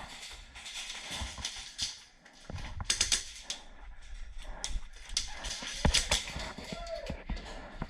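Scattered sharp clicks and knocks from airsoft close-quarters play, irregular rather than a steady rhythm. The loudest come about three and six seconds in.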